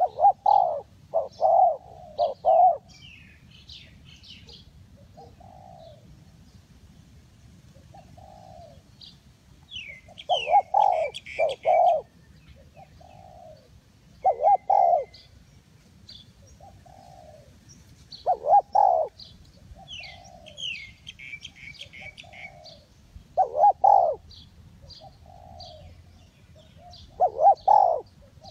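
Spotted dove calling: loud cooing phrases repeated every few seconds, with fainter single coos between them. Small birds chirp in the background.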